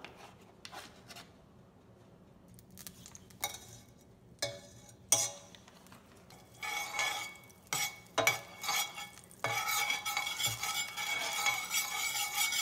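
Knife and spoon clinking and scraping against a stainless steel pot as butter goes into hot olive oil, then the butter sizzling as it melts and is stirred, turning into a steady sizzle about three quarters of the way through.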